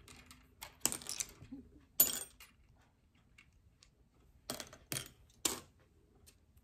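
Small buttons and beads clicking against each other and the ceramic bowls as they are sorted and dropped by hand: a handful of separate sharp clicks, with a lull in the middle.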